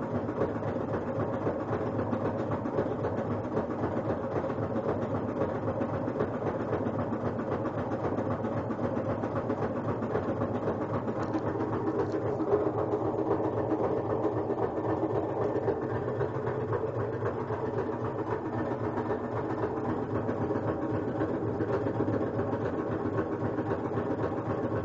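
Kenmore front-load washer in its spin cycle, running with a loud, steady, rapid knocking rattle over the drum's hum. It sounds as if the drum is hitting something or a belt is touching something, which is what the owner suspects, though no foreign object was found inside.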